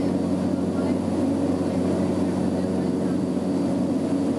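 Small aircraft's engine running steadily, heard from inside the cabin as a constant drone.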